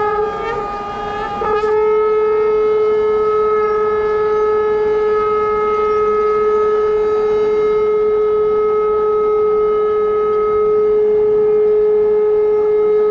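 Conch shell (shankh) blown in one long, steady note; it wavers and breaks off briefly about a second in, then holds unbroken.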